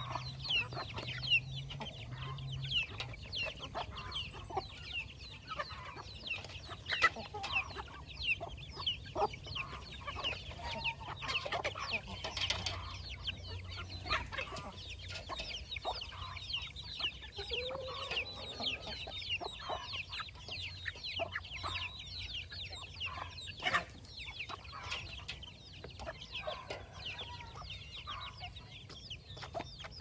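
A flock of hens and young chickens calling while feeding: a constant stream of short, high, falling peeps with clucks among them. Scattered sharp taps come through the calling.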